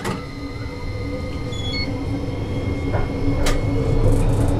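Toyohashi Railway T1000 'Hot Tram' low-floor tram pulling away: the motor hum and running noise grow steadily louder as it gathers speed, with a few sharp clicks, one at the start and two about three seconds in.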